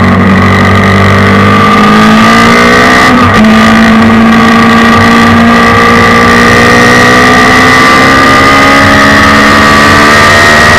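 Suzuki Hayabusa inline-four motorcycle engine powering a race car under hard acceleration, its pitch climbing steadily, with an upshift about three seconds in and another long climb through the next gear. Heard from the cockpit.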